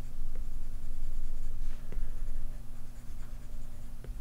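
Apple Pencil tip stroking and tapping on an iPad Pro's glass screen while shading, with a few light ticks, over a low steady hum.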